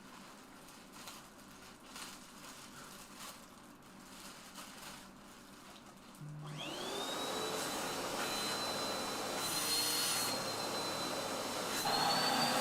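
Faint clicks and rustling, then a vacuum cleaner switched on about halfway through: its motor whine climbs quickly and settles into a steady, strong whine over a rush of air.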